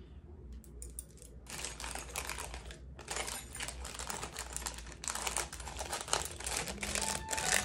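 Packaging crinkling as it is handled, starting about one and a half seconds in and going on as a dense crackle.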